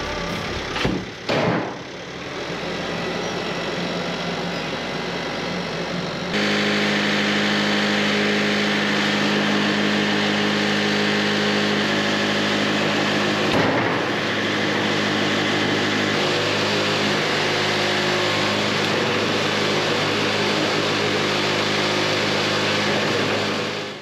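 Engine running steadily. About six seconds in the sound jumps suddenly to a louder, even drone with a strong low hum, and there is a brief whoosh about halfway through.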